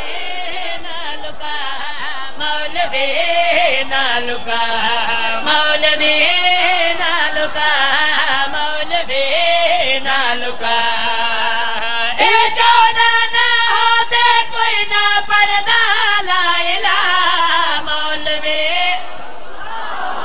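A man's voice singing a qasida through a public-address microphone: long held notes that slide and waver in pitch, with short breaks between phrases. The singing stops near the end.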